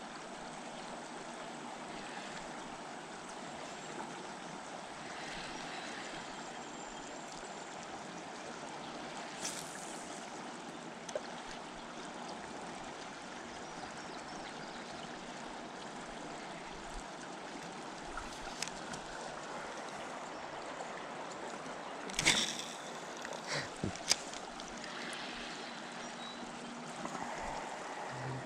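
River water running steadily, with a few short clicks, the loudest about 22 seconds in.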